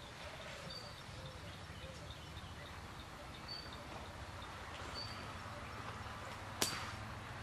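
Quiet outdoor ambience with a low hum, in which a small bird gives short, high single chirps every second or few. About six and a half seconds in comes one sharp click, the loudest sound.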